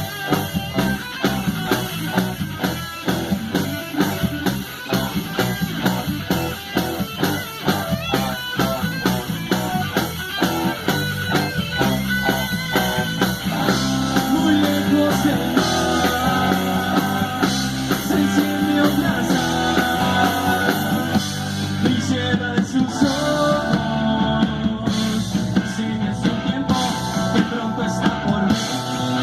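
Rock music with electric guitar and a steady drum beat: the instrumental break of the song, with no vocals.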